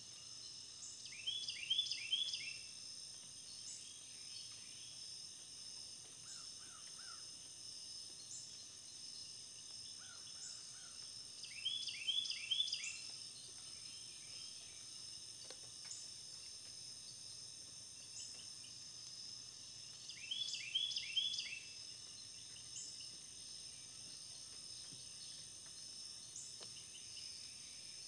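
Steady high-pitched insect chorus, crickets trilling, broken three times by a louder burst of several quick falling chirps lasting about a second, roughly every eight or nine seconds.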